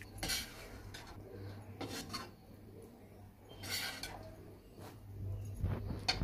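A few brief rubbing scrapes, about four spaced a second or two apart, as a ceramic serving bowl of curry is handled, over a low steady hum.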